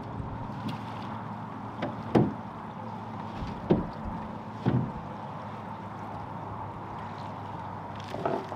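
A handful of dull, irregular knocks as the kick-up rudder blade and its wooden shear pin are worked and seated in the rudder housing of an aluminium catamaran, over a steady low hum.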